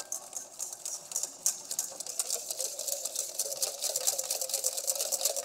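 Wire whisk beating a cornstarch-and-water slurry in a stainless-steel bowl: a fast, steady clatter of the wires ticking and scraping against the metal.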